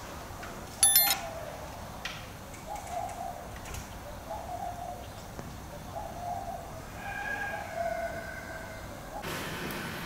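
Birds calling: a short high chirp about a second in, then a dove cooing softly over and over. A steady hiss comes in near the end.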